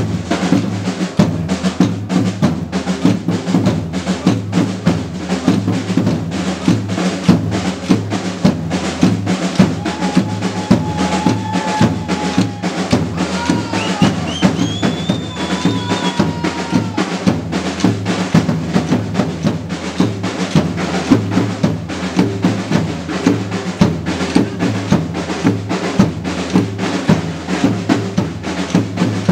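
Batucada drum group playing together: large bass drums and snare drums struck with mallets and sticks in a fast, steady, driving rhythm.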